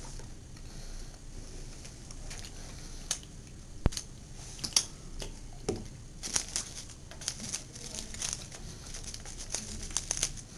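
A hand rummaging in an Easter basket: plastic crinkling and rustling with scattered sharp clicks. It gets busier from about six seconds in.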